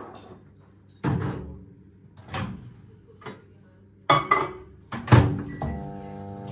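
A series of separate knocks and thuds from kitchen work, the loudest a few seconds in. Steady background music comes in near the end.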